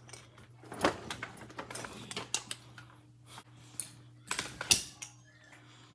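A quick, irregular run of sharp clicks and clatters, as of small hard objects being handled, loudest about a second in and again a little past four seconds, over a faint steady low hum.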